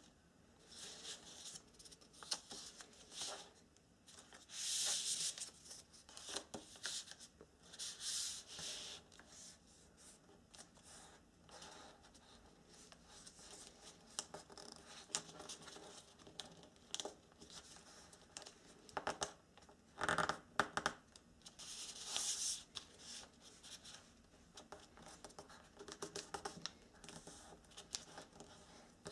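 Origami paper being folded and creased by hand on a table: irregular rustling and crinkling, with several louder swishes of paper sliding and being pressed flat.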